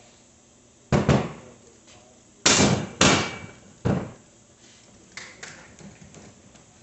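Sharp knocks and bangs of a kid's bike and tools being handled on a workbench. Two close knocks come about a second in, two louder bangs follow around two and a half to three seconds, another comes near four seconds, and lighter clatter comes after.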